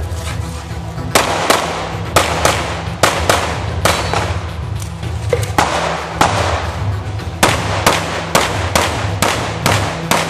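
Pistol shots fired in quick pairs and rapid strings, each a sharp crack with a short echo, about two dozen in all.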